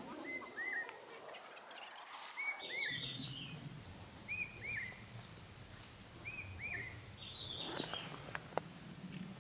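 Bird calling: short arched chirps in pairs, a pair about every two seconds, with two brief bursts of faster, higher twittering, over a low steady background of forest ambience.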